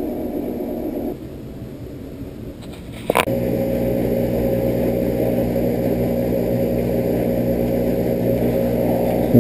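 A click about three seconds in, then a steady machine hum with a low drone that runs on unchanged.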